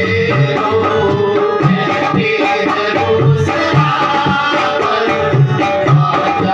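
Live qawwali ensemble playing: a harmonium melody in steady held notes over a tabla rhythm.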